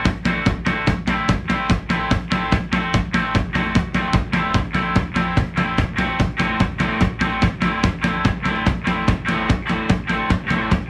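Background music with a fast, steady drum beat, about four hits a second, over sustained pitched instruments.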